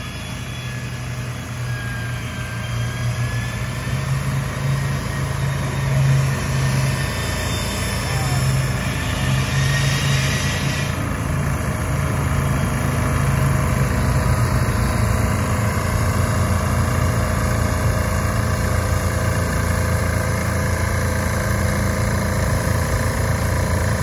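A heavy engine running steadily, building in loudness over the first dozen seconds, as under lifting load. A hiss rises over it and cuts off suddenly about eleven seconds in.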